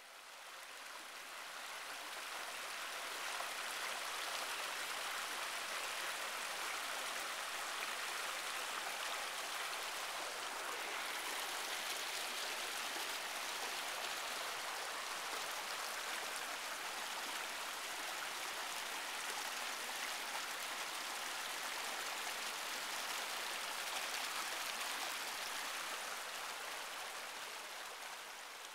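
Canyon creek flowing, a steady rush of water that fades in over the first few seconds and fades out near the end.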